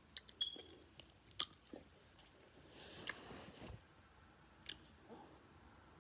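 Faint chewing and mouth sounds, with a few soft clicks scattered through.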